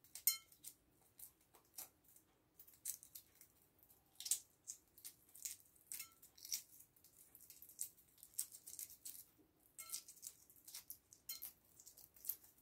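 Hard-boiled egg being peeled by hand: faint, irregular crackling and clicking as the shell breaks and pieces come away.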